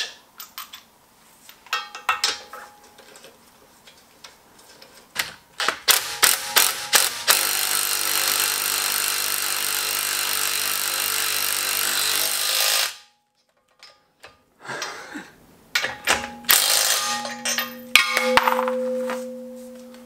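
Cordless impact wrench hammering a wheel bolt tight, a steady loud rattle of about five seconds that cuts off suddenly. Before it come light clinks and knocks of bolts and socket being handled, and near the end a quieter steady whir with clicks.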